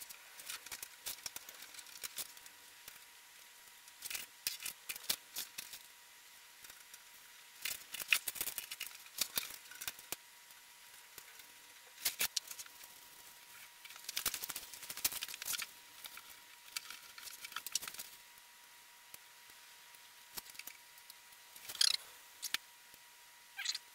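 Sped-up clicking and clattering of sheet-metal panels, bolts and small hand tools being handled while a blast cabinet is assembled, in irregular clusters of quick sharp clicks, with a short squeaky glide near the end.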